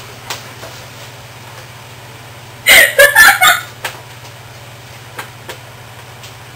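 A man laughing in a short, loud burst about three seconds in, over a steady low electrical hum.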